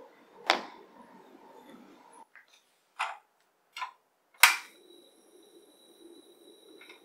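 Batter being stirred in a dish, with one sharp knock of the spoon against it. Then a portable butane stove's ignition knob clicks a few times, a loud sharp igniter click about four and a half seconds in lights the burner, and the gas flame hisses steadily with a faint high whine.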